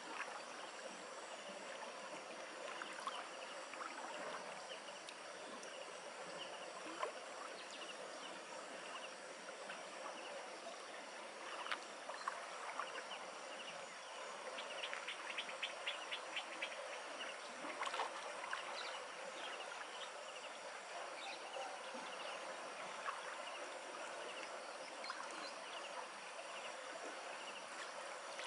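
Faint steady outdoor background of insects, with light water splashing and dripping as a wet cast net is hauled in by hand and lifted out of the water. A short run of rapid clicks comes a little past the middle.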